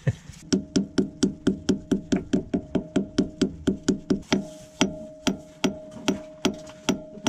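Hammer tapping a socket used as a drift to drive a new drive shaft oil seal into the gearbox casing of a Fiat Ducato: a rapid, even run of ringing metal knocks, about four a second, slowing to about two a second after four seconds.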